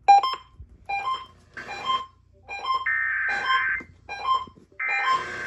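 Radio audio: short piano-like keyboard notes repeating under two harsh, buzzing data bursts, each about a second long, starting about three seconds in and again near the end. The bursts are the Emergency Alert System SAME header tones that announce an alert.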